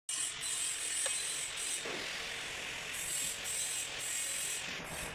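Ratchet wrench clicking in stretches as it is worked on fasteners during hybrid battery removal or fitting.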